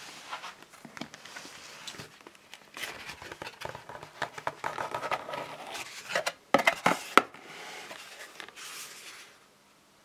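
Cardboard box being opened and its paper contents handled: rustling, scraping and rubbing of cardboard and paper, with a few sharp knocks about two-thirds of the way in.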